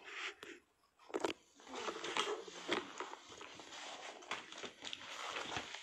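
Rustling and handling noise close to a phone's microphone, with scattered clicks and knocks.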